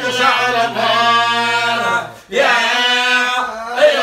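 Men's voices chanting a Quran recitation in long, drawn-out melodic phrases, held on steady notes, with a breath pause a little over two seconds in before the next phrase.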